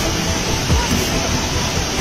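Background music with a steady deep beat, about two a second, over the constant rush of a fast, churning river.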